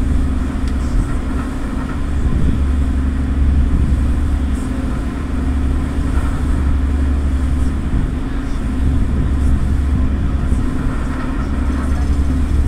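A Halifax Transit passenger ferry's engines run steadily under way, giving a constant low drone with a steady hum above it.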